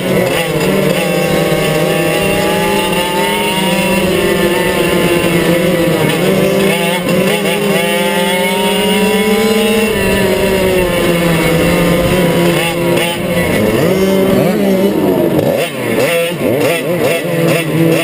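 Two-stroke racing kart engines running hard, the onboard engine's pitch rising and falling through the corners, with other karts' engines close by. Near the end the engine note drops and wavers.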